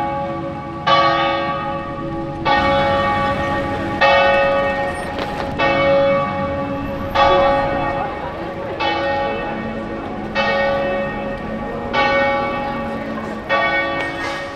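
Church tower bells tolling, with a stroke about every one and a half seconds. Each stroke rings on and overlaps the next.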